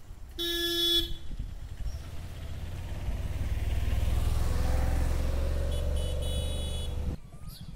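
A small goods truck gives one short honk of its horn, then drives past close by. Its engine rumble swells with a faint whine and dies away. A few short high-pitched horn beeps come near the end, and the sound cuts off suddenly.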